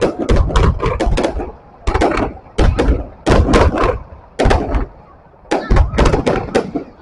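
Fireworks going off: rapid volleys of sharp bangs and cracks with a deep boom, in clusters broken by short pauses about two seconds in and again around five seconds.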